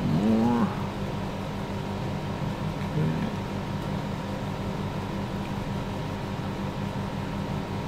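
Steady background hum, like a fan or air conditioner, with a constant high tone, and a brief murmur from a voice at the very start.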